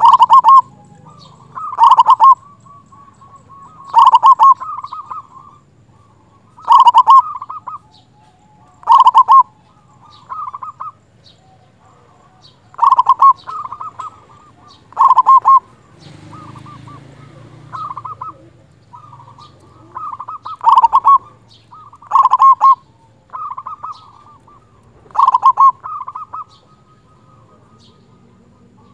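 Zebra dove (perkutut) singing: loud, repeated phrases of quick rolling coos, about one phrase every two seconds, with softer phrases between them.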